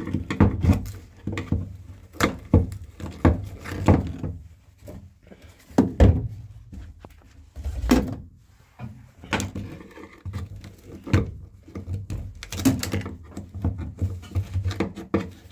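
Irregular knocks, clatters and scrapes of hand tools on a Classic Mini's bare steel floor pan as old sound-deadening pads are pried and chipped off, a few blows a second at the busiest.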